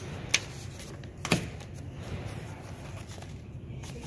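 Handling inside a hard plastic pistol case: papers and contents moved about, with two sharp clicks, about a third of a second and just over a second in, over a steady low background noise.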